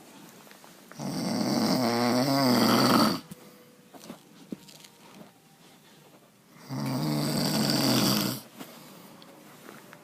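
A man snoring: two long, loud snores, one starting about a second in and the next about six seconds later, each lasting about two seconds, with quiet breathing in between.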